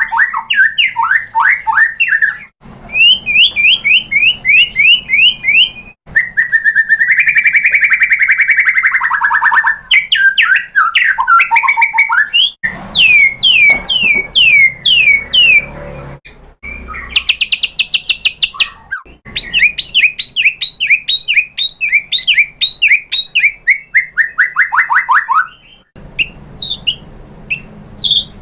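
White-rumped shama in full song: loud phrases of fast repeated down-slurred whistles, several a second, alternating with held whistled notes, and the phrases breaking off sharply one after another.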